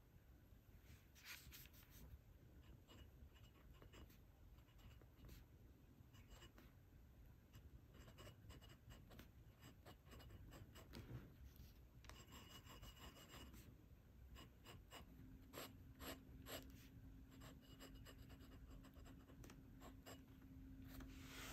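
Faint scratching of a glass dip pen's nib writing on paper, in many short, irregular strokes.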